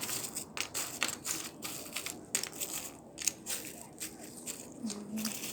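Edible clay (nzu/ulo) being crunched close to the microphone: a quick, irregular run of dry crunches and cracks.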